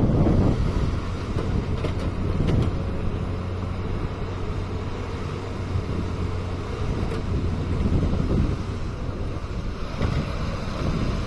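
Heavy diesel engine of an excavator working, a steady low hum that swells under load now and then, with wind buffeting the microphone.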